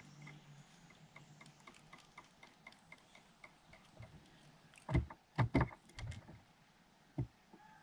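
Faint, regular ticking about four times a second, then a handful of sharp knocks and clacks about five to six seconds in and one more near the end, as small parts or tools are handled on a work surface.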